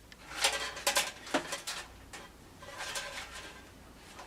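Electrical wire being pulled back through a sheet-metal access panel, rustling and clicking in two spells, the first about half a second in and the second near three seconds.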